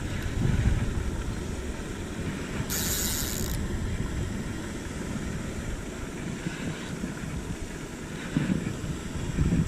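Wind buffeting the microphone outdoors, a steady low rumble, with a brief hiss about three seconds in.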